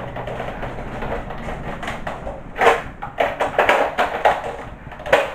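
Handling noise from a Nerf blaster and its packaging: a quiet stretch, then from about halfway a run of short rustles and plastic clacks as the blaster is moved about.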